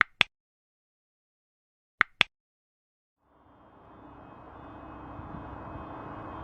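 Two quick double clicks about two seconds apart, then steady outdoor vehicle and street noise with a low hum fading in and slowly growing louder.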